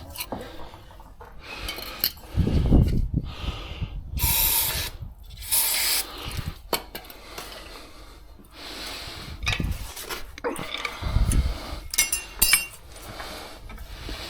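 Irregular metallic clinks and clunks of hand tools and parts being handled, with a few low thumps and a couple of short hissing rushes.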